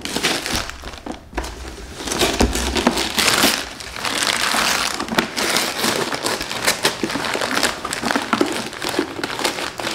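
Gift-wrapping paper being crumpled and pulled off a boxed present by hand, a dense crackling rustle that gets louder about three seconds in.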